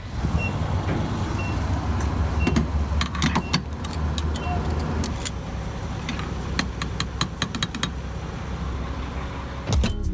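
A car on the move: a steady low engine and road rumble, with scattered light clicks and rattles.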